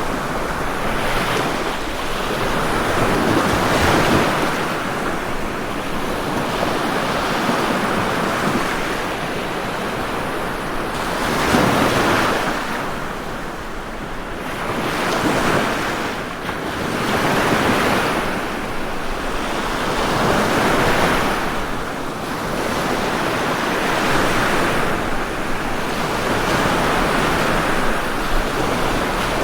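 Ocean waves breaking and washing on a shore, a continuous rushing that swells and ebbs every few seconds, with one sharper crash about twelve seconds in.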